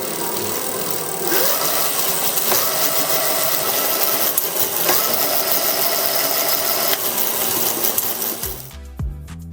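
A power tool running loudly and steadily for about seven seconds, then cutting off. Background music comes in near the end.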